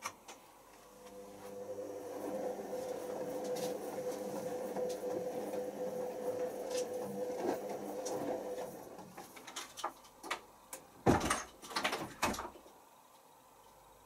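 Hoover Optima OPH714D washing machine's drum turning during the wash, its motor whining steadily for several seconds before winding down. A few sharp knocks and clicks follow near the end, the loudest about eleven seconds in.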